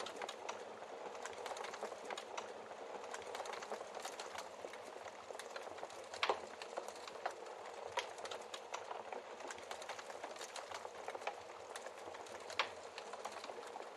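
Wood fire crackling in a fireplace: a steady hiss with constant small snaps and a few louder log pops, the sharpest about six seconds in and again near the end.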